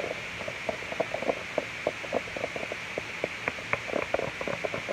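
Slime mixture being stirred with a spoon in a bowl: rapid, irregular wet squelches and small clicks, several a second.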